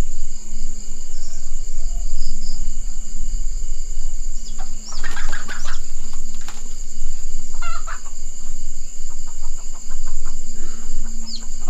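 Chickens squawking and clucking in the dark, the commotion that gave away a cobra come to raid their eggs. Calls come scattered through the middle and as a quick run of short high chirps near the end, over a steady high whine.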